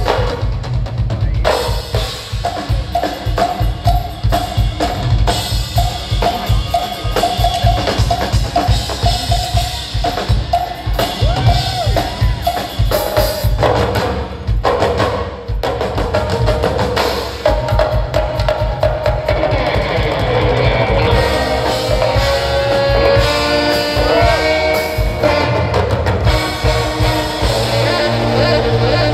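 Live band playing an instrumental: a steady drum-kit beat with extra percussion under a sustained lead melody, heard from the audience seats.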